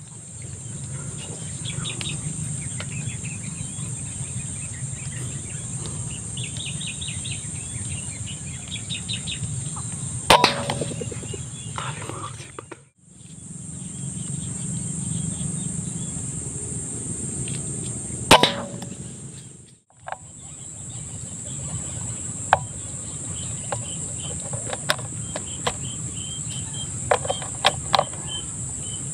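Two sharp, loud PCP air rifle shots about eight seconds apart, the first followed by a second or so of commotion, over a steady high-pitched insect chorus; a few smaller clicks come near the end.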